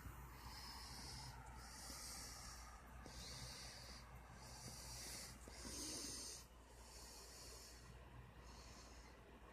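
Near silence: a faint steady low hum, with soft hissing breaths close to the microphone recurring every second or so.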